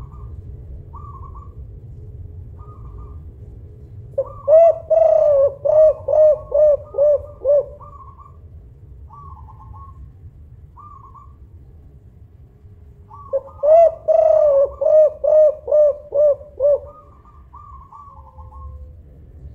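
Spotted dove, a crested 'songgo ratu' tekukur, cooing loudly in two bouts of about eight rapid, repeated coos, several seconds apart. Short faint higher chirps sound in between.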